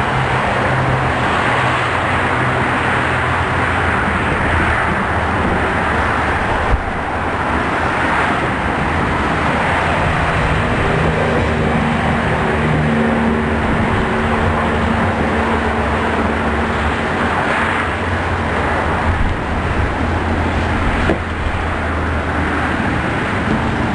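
Continuous highway traffic noise: a steady wash of tyre and engine sound from cars and trucks going past, with a short thump about seven seconds in.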